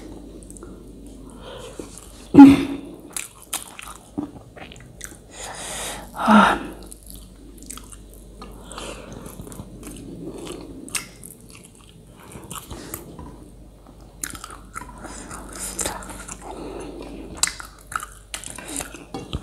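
Close-miked chewing of a person eating rice and pork, with many small wet clicks throughout and two louder short mouth sounds, one a little after two seconds and one about six seconds in.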